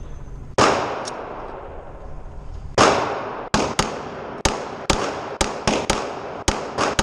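Pistol shots echoing, about a dozen in all: two loud shots a couple of seconds apart, then a quicker, uneven string of shots about a second in.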